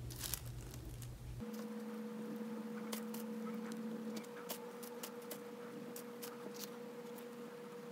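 Hands working soft clay on a plastic-covered board: scattered faint clicks and light taps. A steady faint hum comes in about a second and a half in.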